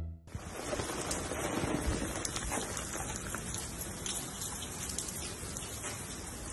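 Steady rain falling: an even hiss with small ticks of drops in it.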